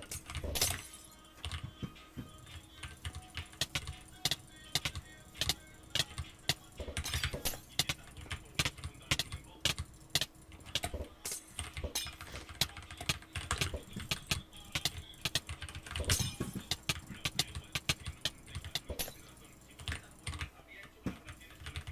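Many sharp small clicks at uneven intervals, several a second, with a faint steady hum underneath.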